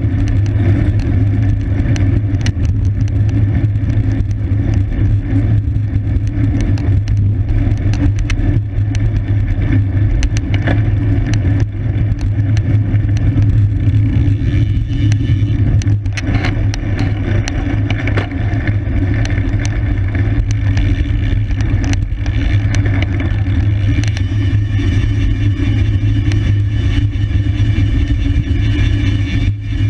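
Wind rushing over the microphone of a camera riding on a bicycle in motion: a steady low rumble, with frequent small clicks and rattles throughout.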